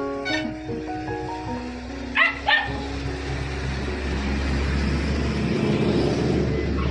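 Dutch shepherd puppy giving two short, high yelps about two seconds in, over plucked-string background music. A passing truck's engine and tyre noise then builds toward the end.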